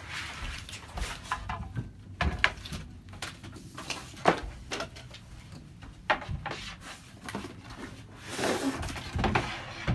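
Flat-pack furniture boxes and parts being unpacked and handled: scattered knocks, taps and cardboard rustling, with one sharp knock about four seconds in.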